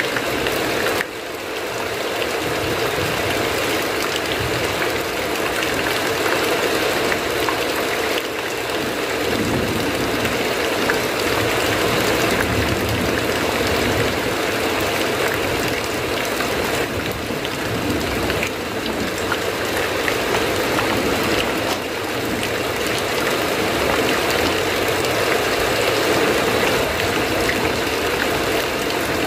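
Heavy rain falling steadily, a dense even hiss of drops, dipping briefly about a second in.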